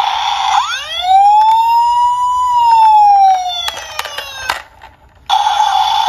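Electronic siren from a Tonka toy police truck's sound module, played through its small speaker. A harsh steady tone gives way to one slow wail that rises and then falls, with clicks of the roof buttons being pressed. The sound cuts out briefly near the end, then the steady tone starts again.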